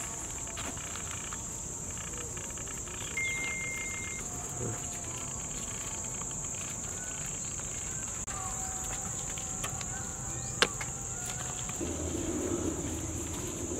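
A steady, high-pitched chorus of insects such as crickets. A sharp click comes about ten and a half seconds in, and a low rushing noise rises near the end.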